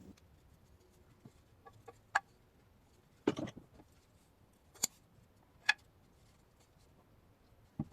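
A few short, sharp knocks and clicks, about a second apart, against a quiet background.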